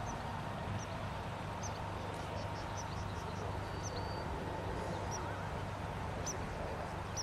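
Faint steady whine of the model Airbus Beluga's electric ducted fans flying far off, under a low wind rumble on the microphone, with scattered short high chirps from small birds.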